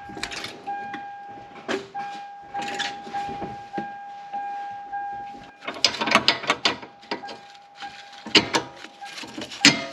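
Irregular metallic clicks and clanks as the front suspension and hub are moved and handled by hand, to check for play in the link. They come in a busy cluster about six seconds in, with sharper knocks near the end, over a steady faint high whine.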